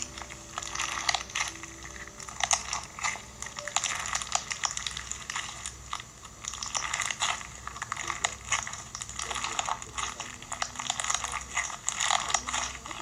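Fishbowl slime, clear slime packed with small plastic fishbowl beads, being squeezed and kneaded by hand: a dense, irregular run of small crunching clicks and crackles.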